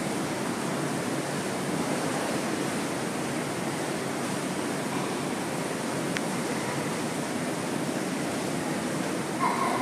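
Steady rushing noise of churning water from an indoor pool and its bubbling hot tub, with one faint click about six seconds in.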